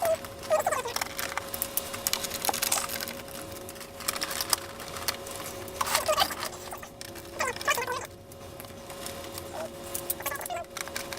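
Screws being taken out of an LCD monitor's screen frame with a screwdriver: scattered clicks and short squeaks as the screws turn, over a faint steady tone.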